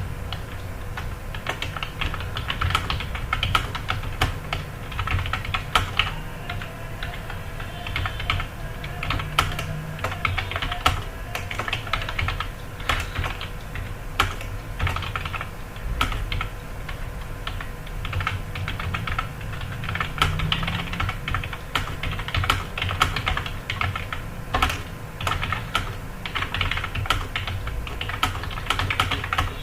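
Fast, continuous typing on a computer keyboard, rapid irregular key clicks with short pauses here and there.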